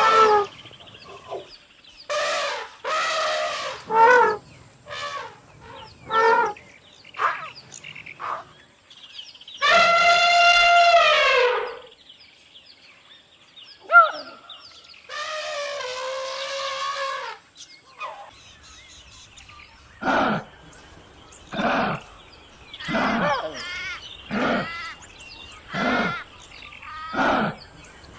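A series of wild animal calls: short pitched calls at first, then two long drawn-out calls of about two seconds each, and then a run of short calls repeated at an even pace, about one every second and a half.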